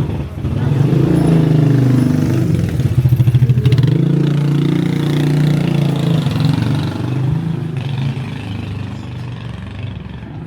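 Motorcycle engine running close by, its pitch wavering slightly, then fading away after about seven seconds.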